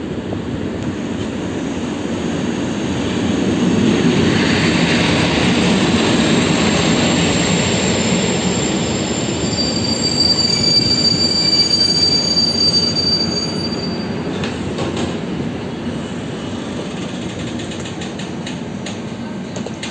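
Intercity passenger train hauled by an EP07 electric locomotive rolling into the platform and slowing to a stop: a rumble of wheels and coaches that builds to its loudest in the middle, with high steady squeals as it brakes. A few sharp clicks come as it halts, and the rumble settles lower.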